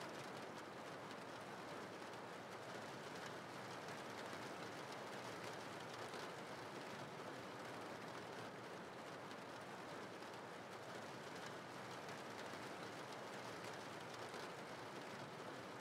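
Steady rain falling, an even, unchanging hiss.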